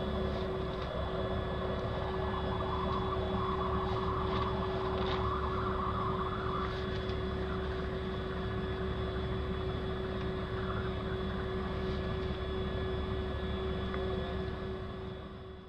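A steady mechanical engine drone, a low rumble with a held hum, fading out near the end.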